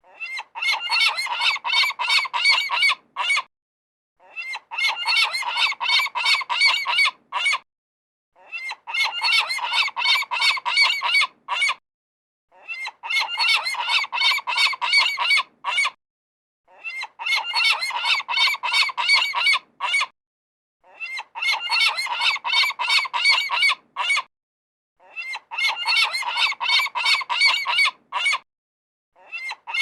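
A group of seagulls calling, many rapid overlapping cries. The calls come in bursts about three and a half seconds long, separated by short silent gaps and repeating about every four seconds.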